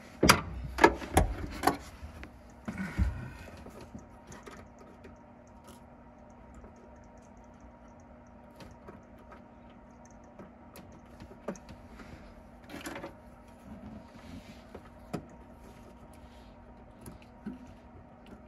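Hands handling a car's factory wiring harness while fitting a T-tap connector: a cluster of loud knocks and clicks in the first two seconds and another about three seconds in, then faint scattered clicks and rustles over a steady low hum.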